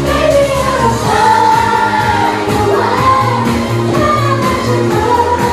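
Pop song performed live: a woman singing long held notes over a backing track with a steady beat and bass line.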